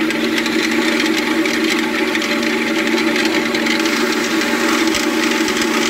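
Hydraulic-motor-driven cutting disc of a Joskin Solodisc Scalper distributor (macerator) spinning at speed while running dry with no slurry in it, making a steady drone. Running dry, it drones a little.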